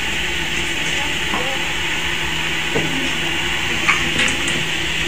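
Steady hum and hiss of running PCB assembly machinery, with a few light clicks.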